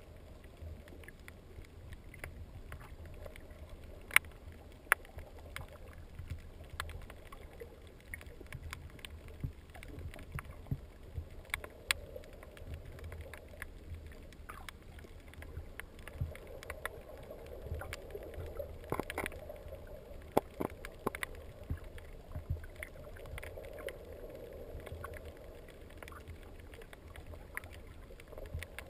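Muffled underwater sound through a waterproof camera housing: a steady low rumble of water with a hiss that swells and fades, dotted with irregular sharp clicks.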